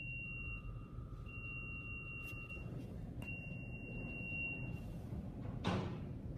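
Long electronic beeps at one high pitch, each about a second and a half with short gaps, over a steady low rumble inside a car in an automatic car wash. A short loud whoosh comes near the end.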